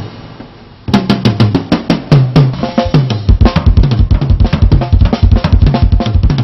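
Drum music: a quick, dense run of drum strokes starts about a second in, and deep bass drum beats join from about three seconds in.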